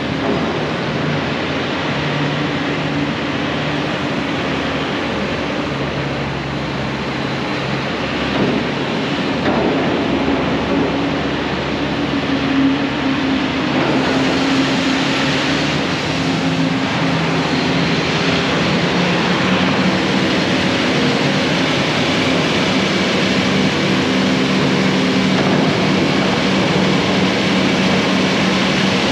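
Diesel engines of Caterpillar hydraulic excavators running and working in an excavation pit, their pitch rising and falling with load, over a steady background rumble. A couple of short knocks stand out.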